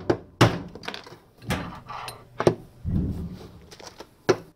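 Nylon hammer striking a long screwdriver, four sharp blows about a second apart with a duller thud between the third and fourth. The blows are driving the drive bearing and shaft seal out of a Fisher & Paykel direct-drive washing machine's bearing housing.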